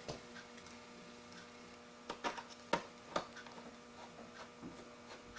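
Faint steady electrical hum, with a few light, sharp clicks and taps about two to three seconds in from small screws and a screwdriver being handled on a laptop's plastic base.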